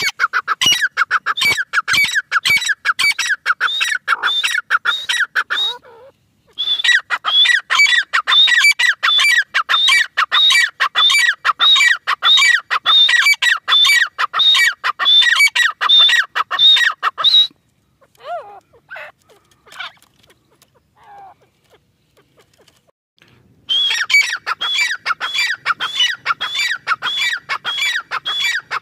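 Grey francolin calling: long runs of loud, rapidly repeated notes. About two-thirds of the way in the calling drops to a few scattered notes for several seconds, then starts again near the end.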